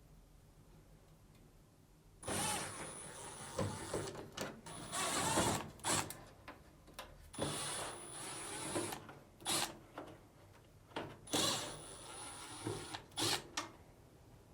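Power screwdriver backing out the four Phillips screws that hold a dryer's control panel: four separate runs of whirring motor with a thin high whine, with clicks and knocks of handling between them.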